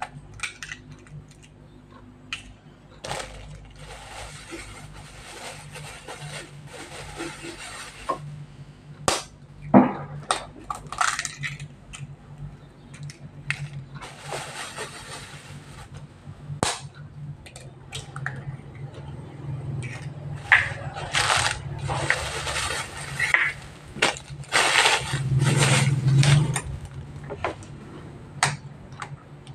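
A metal spoon clinking and knocking against a ceramic bowl while stirring egg into noodles, with stretches of plastic packaging crinkling. The sharpest knock comes about ten seconds in.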